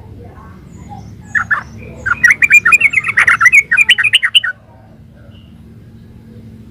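Sooty-headed bulbul (trucukan) singing: a short phrase about a second and a half in, then a fast, continuous run of notes for about two seconds that stops abruptly. A faint steady low hum runs underneath.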